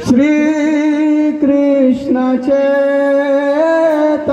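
A man singing a long held note of a devotional song through a microphone, the pitch nearly steady with a couple of brief breaks and a slight rise near the end.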